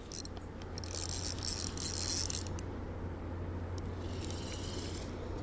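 Fishing reel being cranked: a run of quick mechanical ticking lasting about two and a half seconds, then a shorter, fainter run near the end.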